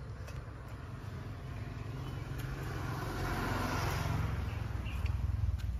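A road vehicle driving past: a low rumble and tyre hiss that builds over the first couple of seconds and is loudest from about three to five and a half seconds in.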